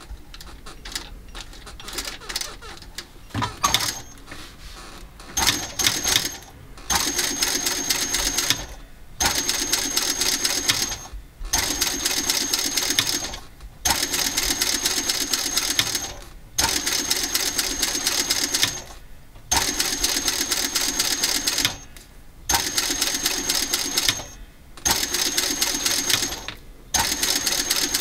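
JUKI industrial sewing machine stitching leather bag handles: a fast, even stitching rattle in runs of about two seconds, stopping briefly between runs as the leather is repositioned. The first few seconds hold only a few scattered clicks before the machine starts.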